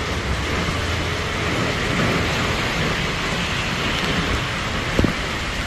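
Heavy typhoon rain and wind: a steady, dense hiss. One sharp thump about five seconds in.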